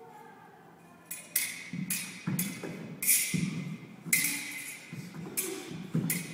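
Music with sharp percussive hits at an uneven pace, starting about a second in after a quiet opening.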